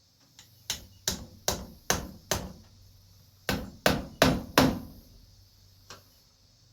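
Hammer driving small nails into a boot's rubber heel piece: a run of five quick strikes, a pause, four more strikes, then one light tap.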